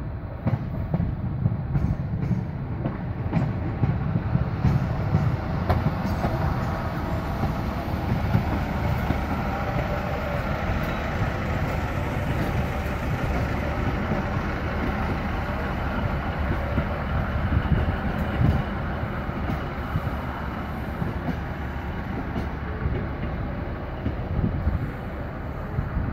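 ScotRail diesel multiple unit passing close by, a steady low rumble of its engine and wheels on the rails.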